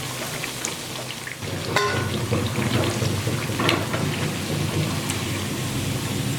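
Ragi bondas deep-frying in hot oil: a steady sizzle full of small crackles that grows louder about a second and a half in. A single metal clink comes at about the same point.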